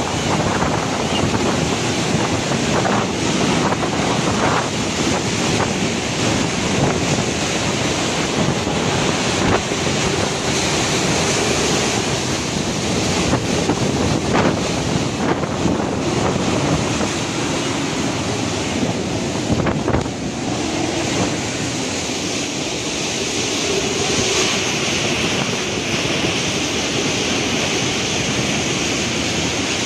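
Typhoon-force wind gusting and driving rain, with heavy wind buffeting on the microphone. About twenty seconds in the sound changes, with more hiss in the upper range afterwards.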